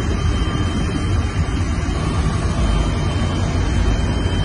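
Steady, loud running noise inside a moving locomotive cab: the locomotive's running and its wheels on the rails, deep and even.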